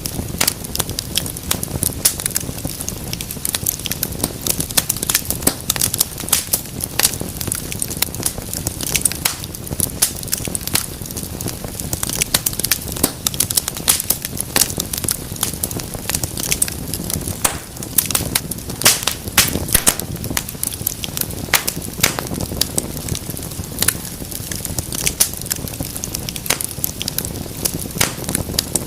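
Wood fire crackling: dense, irregular sharp pops and snaps over a steady low rumble of flames.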